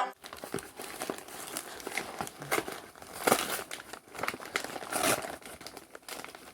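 Packaging crinkling and rustling as a package is unwrapped by hand, with irregular crackles and a few louder tearing or crumpling strokes.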